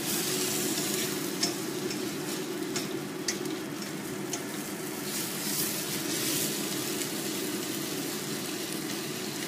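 Sliced beef sizzling as it is stir-fried in a wok, with a spatula scraping and knocking against the pan now and then over a steady low hum.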